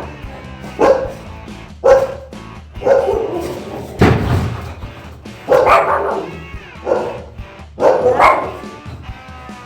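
Shih tzu barking in short, sharp barks, about one a second, alarm barking at someone at the door.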